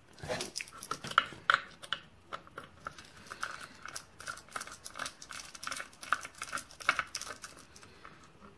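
Small irregular metallic clicks and scrapes of a precision screwdriver turning the screws on the back of a brass mortise lock cylinder, as the cylinder is taken apart.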